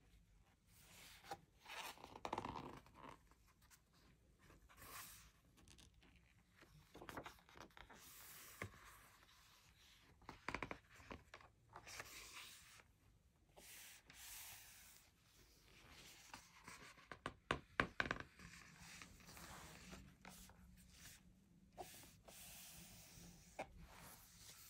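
Pages of a hardcover dot-grid journal being turned and smoothed down by hands in thin plastic gloves: quiet, intermittent paper rustles and rubbing, with a quick cluster of sharp ticks about two-thirds of the way through.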